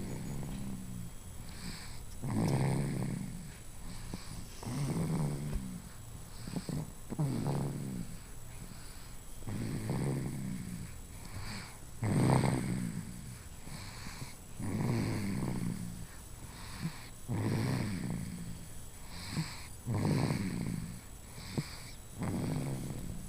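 Snoring in sleep: slow, regular snores, one about every two and a half seconds, some followed by a short snort, the loudest about halfway through.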